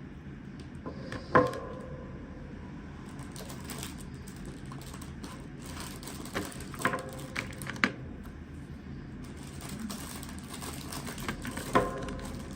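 Toy unboxing handling sounds: a few separate sharp clicks and taps of small hard pieces, the loudest about a second in and another near the end, each ringing briefly.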